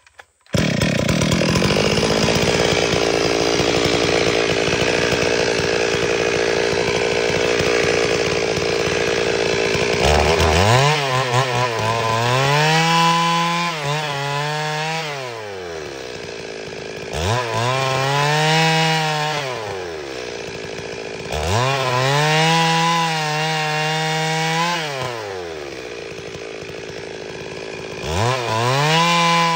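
Stihl MS 382 two-stroke chainsaw rip-cutting lengthwise into a timber beam. It runs steadily under load for about the first ten seconds. Then come four throttle cycles in which the engine speed climbs, holds through the cut and falls back toward idle between passes.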